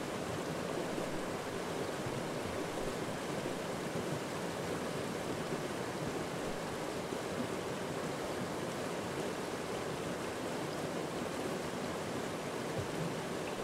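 Shallow mountain stream rushing steadily over rocks and boulders.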